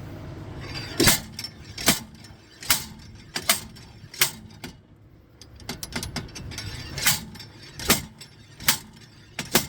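Slide hammer jerked repeatedly against its stop to pull the rust-seized front hub bearing off a 2005 Prius: sharp metallic clanks about every 0.8 s, five in a row, a short pause, then four more.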